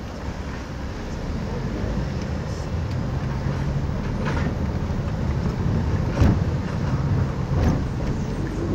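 Car engine and road noise heard from inside the cabin while driving, a steady low rumble. A short thump stands out a little past six seconds in, with a second one about a second and a half later.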